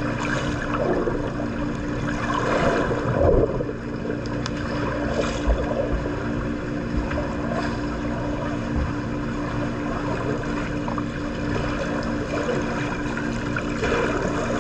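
Pool water splashing and churning from a swimmer's strokes, in repeated swells, over a steady low hum.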